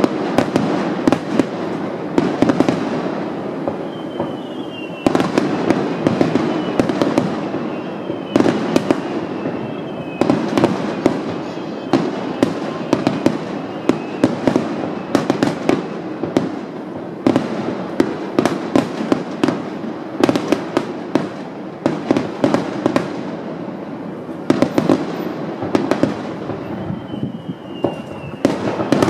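Fireworks finale: many aerial shells bursting in quick succession, a dense, unbroken run of sharp bangs. A few short falling whistles cut through now and then.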